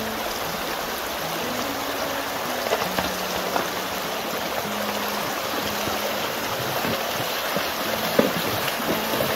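Shallow, rocky creek running with a steady rush of water. Near the end a horse's hooves splash as it wades through the stream.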